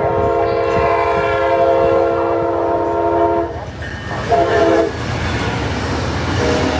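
Amtrak locomotive's multi-chime air horn sounding over the rumble of the passing train: a long blast that ends about halfway through, a short blast, then another blast starting near the end. The long-short-long run fits the grade-crossing horn signal.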